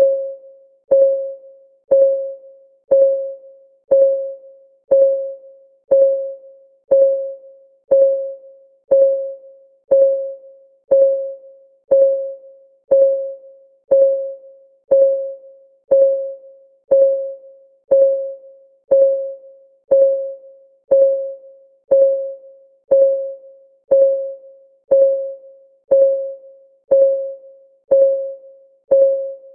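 Clock-ticking sound effect of a countdown timer: a short, pitched tick about once a second, each ringing briefly and fading, evenly spaced.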